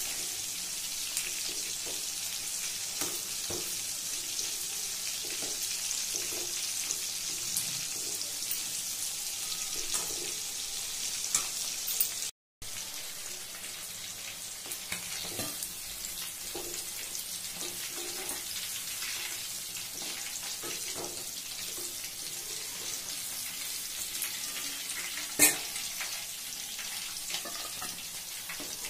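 Marinated chicken pieces deep-frying in hot oil in a steel kadai: a steady, high sizzle, with a metal slotted spoon scraping and tapping the pan now and then. The sound cuts out for a moment about halfway, and a sharp metal knock comes near the end.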